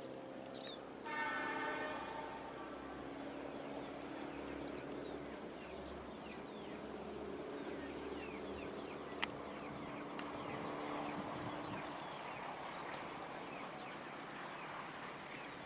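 Diesel locomotive horn sounding one short blast about a second in, over the steady hum of the approaching locomotive's diesel engine. Small birds chirp throughout, and there is one sharp click just past the middle.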